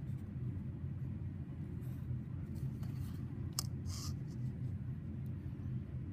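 Pencil scratching in short strokes along a plastic ruler on graph paper, with a sharp click about three and a half seconds in as the ruler is set down, then a brief scrape. A steady low hum runs underneath.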